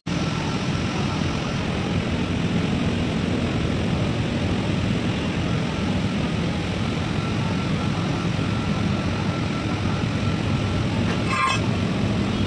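Steady mechanical running noise with a low hum and a faint steady high tone. A short higher-pitched sound comes in near the end.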